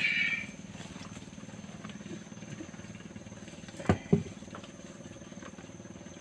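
A steady low engine hum, with a short hiss at the start and two sharp knocks close together about four seconds in.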